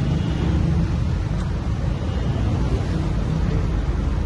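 Steady low rumble of motor vehicles in the street, with no distinct events.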